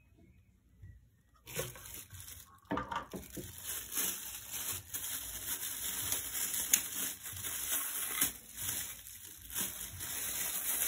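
Clear plastic packaging bag crinkling and rustling as it is handled and unwrapped, starting about a second and a half in and going on as a busy crackle of small ticks.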